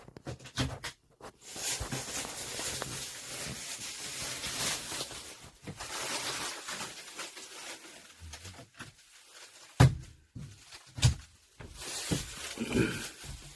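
Rustling or scraping noise, then a few sharp knocks near the end.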